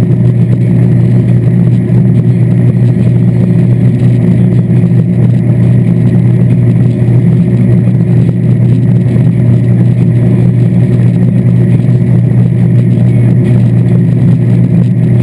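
Moomba LSV wakesurf boat's inboard engine running at a steady speed, a loud, even low drone that does not change, over the rush of the churning wake water.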